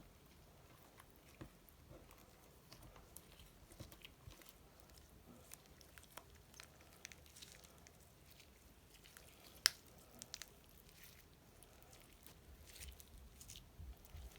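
Slime being worked and mixed by hand: faint, irregular sticky clicks and small squelching pops, with one sharper click nearly ten seconds in.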